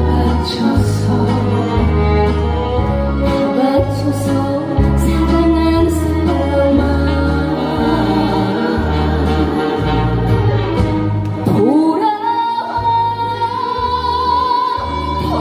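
A live trot song performance: a female voice sings over an amplified band backing with a steady bass beat. About twelve seconds in, a note slides up and is held to the end.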